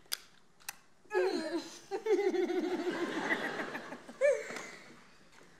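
A young woman laughing hard, breaking into a long fit of rapid, pulsing laughter with a high squeal near the end. Two sharp clicks come just before it.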